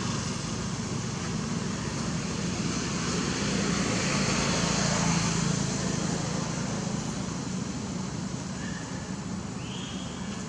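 Steady road traffic noise, swelling once about halfway through as a vehicle passes, with a couple of faint short high calls near the end.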